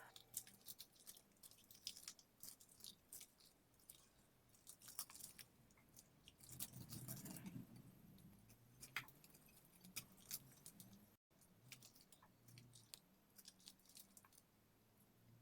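Very faint, scattered small clicks and crackles, with a soft squishy patch about halfway through, as of fluffy homemade slime being pressed and stretched by hand.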